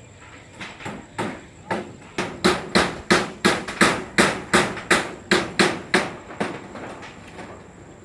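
A hammer striking repeatedly, about twenty blows at roughly three a second, growing louder and then easing off near the end, as in repair work on a poultry house.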